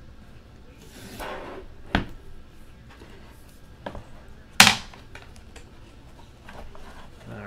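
A cardboard trading-card box and its box-topper card being handled on a desk: a short rub about a second in, a light knock at two seconds, and a sharper, louder knock about four and a half seconds in.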